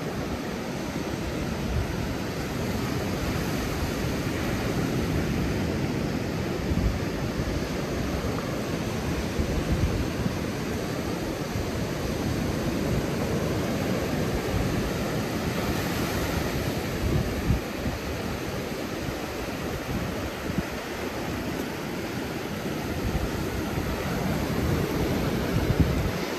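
Stormy wind and North Sea surf as a steady rushing hiss, with gusts buffeting the microphone.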